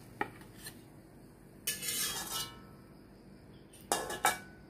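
Metal spatula clinking and scraping against an empty hammered aluminium wok, with a metallic ring: two light clicks, a longer clattering scrape about two seconds in, then two sharp clinks near the end.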